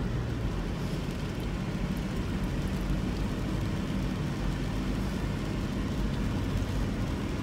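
Steady road noise inside a moving car: a low rumble from engine and tyres with a hiss of tyres on wet pavement.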